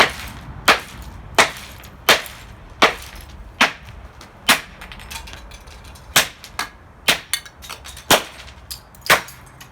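Hammer blows smashing the plastic casing of a Dreamsky DS206 alarm clock radio: sharp cracking strikes about three every two seconds, coming faster in the second half.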